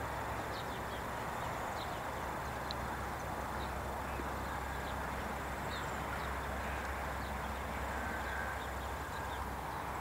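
Short high bird chirps scattered over a steady outdoor background hiss and a low hum.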